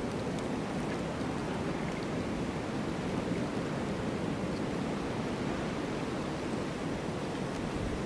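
Strong blizzard wind blowing in a steady, even rush, with no gusts or breaks standing out.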